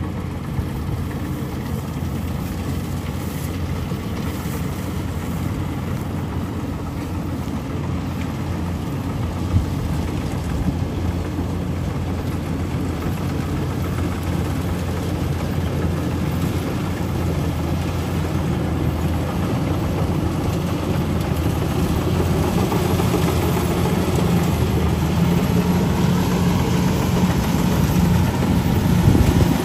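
Rice combine harvester's engine running steadily with a low drone, growing louder toward the end.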